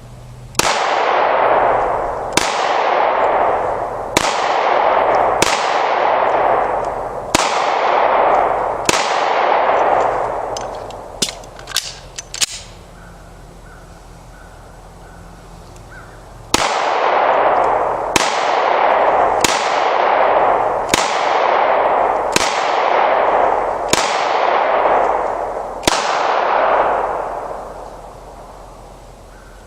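9mm Taurus pistol fired thirteen times, each shot echoing for about a second. Six shots come a second or two apart, then a few quick metallic clicks, a pause of about four seconds, and seven more shots at a similar pace.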